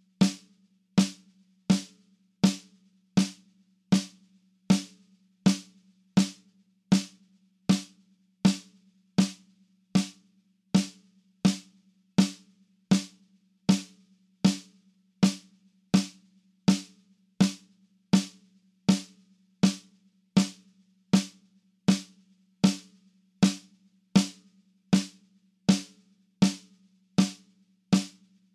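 Metronome click at 80 beats per minute: sharp, evenly spaced ticks of equal strength, over a steady low hum.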